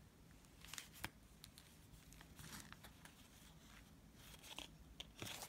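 Faint light ticks and soft rustles of cardboard trading cards being flipped through by hand, with a few sharper ticks about a second in and near the end.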